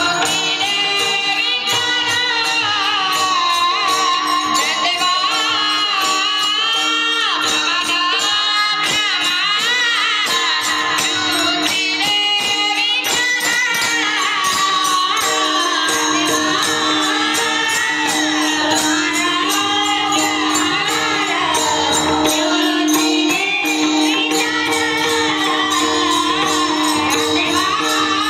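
Varkari devotional singing: a solo voice in long, ornamented gliding phrases over a steady drone, with fast, continuous strokes of small hand cymbals (taal).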